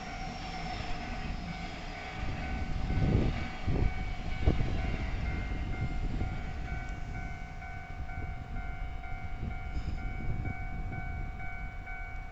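Electric multiple-unit commuter train passing over a level crossing: a low rumble with a few heavy wheel thumps about three to four and a half seconds in, easing off near the end. Over it the crossing's warning bell rings in a steady run of rapid dings.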